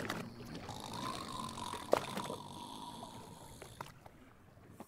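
Sea water lapping around a raft, with a few light knocks, the loudest about two seconds in, and a thin drawn-out tone in the middle.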